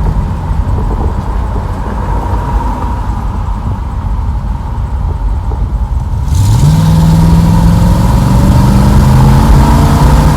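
Car engine with a four-barrel carburettor cruising, then floored about six seconds in. The engine note climbs and holds as all four barrels open, with rushing air and road noise. This is a full-throttle test of an exhaust leak that has just been repaired.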